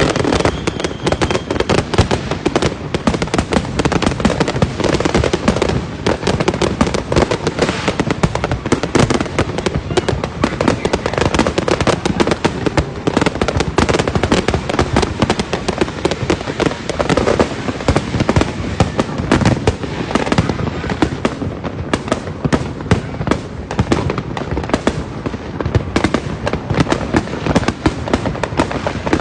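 Fireworks and firecrackers going off continuously: a dense, unbroken crackle of many overlapping bangs and pops with no pause.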